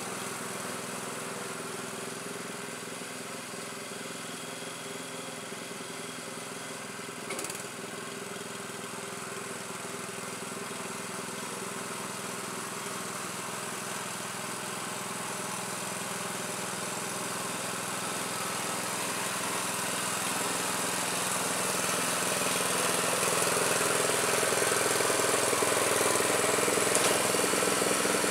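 Predator 212 single-cylinder engine on a Troy-Bilt Horse tiller running steadily. It grows louder over the second half as the tiller comes toward the microphone, with a brief click about seven seconds in.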